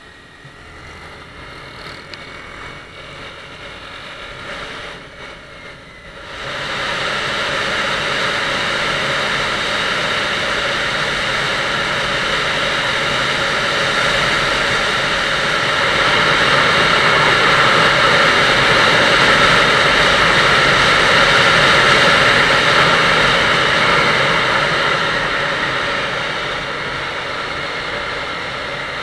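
Motorcycle ride heard from an action camera mounted on the bike: engine and road sound at first, then about six seconds in a loud rush of wind over the microphone sets in suddenly and stays loud as the bike rides at speed, easing off a little near the end.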